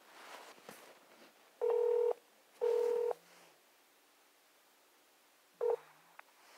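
Telephone line tones heard while a call connects: two steady half-second beeps about a second apart, then a short third beep near the end.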